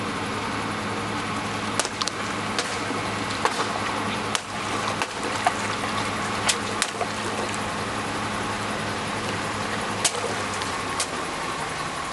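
Water balloons bursting under a slowly rolling car tyre: a string of sharp pops with water splashing and gushing out, over the steady hum of the Suzuki car's idling engine, which fades out near the end.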